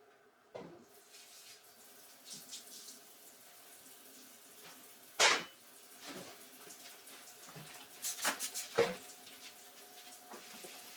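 Water running from a tap into a sink, with a few knocks and clatters, the loudest about five seconds in.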